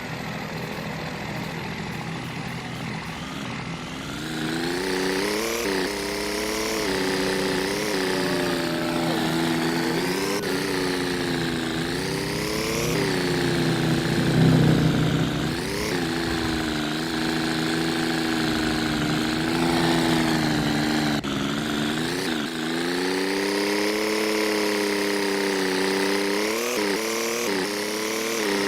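A vehicle engine running, growing louder about four seconds in, its pitch repeatedly rising and dipping as the throttle changes.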